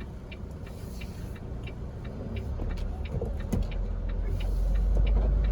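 Semi truck engine rumbling from inside the cab, growing steadily louder, with scattered faint clicks over it.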